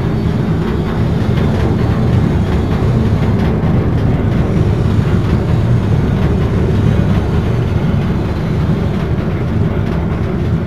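Screw conveyor running empty, its steel spiral flights turning in an open steel trough, giving a loud, steady, low mechanical rumble.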